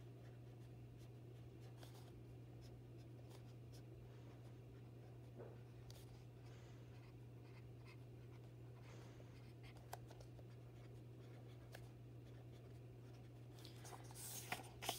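Felt-tip marker writing on a paper card: faint, scattered scratches and taps of the tip over a low steady hum. Near the end there is a louder rustle as the paper card is handled.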